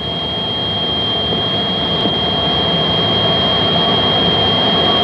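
Phantom jet engine noise heard from inside the cockpit: a steady rush with a constant high whine, growing slightly louder as the pilot checks a sticky throttle.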